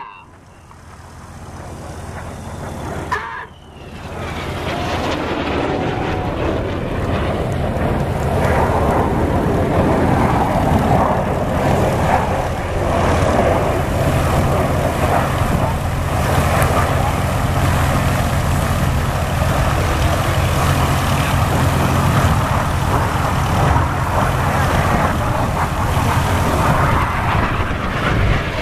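Jet noise from BAE Hawk jets in an aerobatic display, a loud, steady roar. It rises over the first three seconds, breaks off briefly, then builds again as a pair passes low and holds loud.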